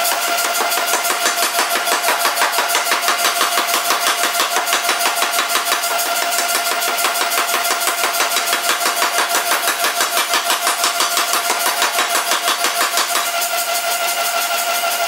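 3B Nazel forging hammer pounding a red-hot stainless steel bar in rapid, even blows, about five a second, with a steady tone running under the blows. The footage is played back at twice normal speed, so the blows come twice as fast as the hammer really strikes.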